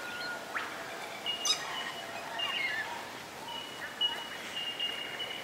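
Wild birds calling: thin, high whistled notes held for a second or more, mixed with short chirps and falling slurs. A single sharp click comes about a second and a half in.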